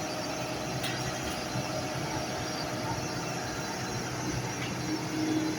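Heavy-machinery diesel engine running steadily, a continuous hum with a broad noisy wash over it and no sharp changes.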